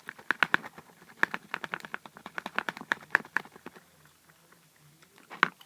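Slime mixture being stirred in a plastic container, a rapid run of irregular clicks and wet taps that stops after about three and a half seconds, with one more sharp click near the end.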